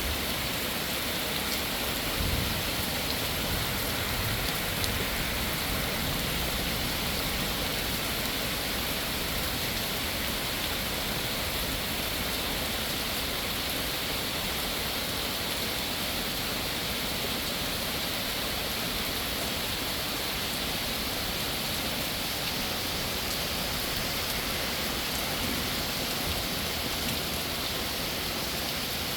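Heavy, steady rain pouring down onto a koi pond and its surroundings, mixed with the running water of the pond's waterfalls. The downpour holds at a constant level throughout.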